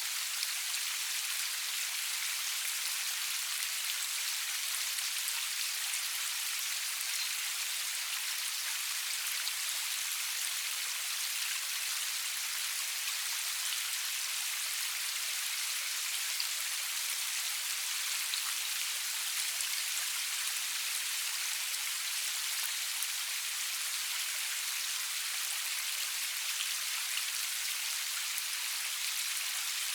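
Steady rainfall with no thunder: an even hiss of rain with scattered small drop ticks, the sound concentrated in the high range with little low rumble.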